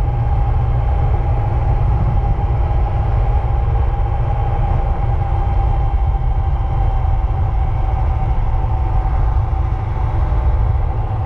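Steady road and engine noise of a moving vehicle heard from inside, a deep rumble with a steady whine over it.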